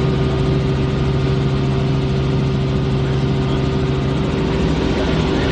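Helicopter engine and rotor in steady flight: an even, unbroken drone with a constant low hum and a higher steady tone.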